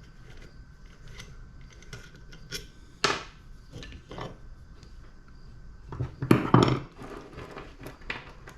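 Metal parts and hand tools clinking and knocking as a pressure washer motor is taken apart: scattered light clinks, a sharper knock about three seconds in, and a louder run of clanks around six seconds in.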